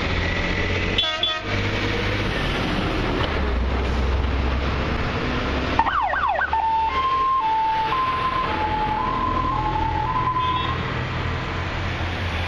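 Heavy diesel fire trucks passing in convoy with a steady engine rumble. About six seconds in, an emergency vehicle's siren gives a quick yelp of fast rising and falling sweeps, then alternates between two tones for about four seconds before stopping; a short blip of sound comes about a second in.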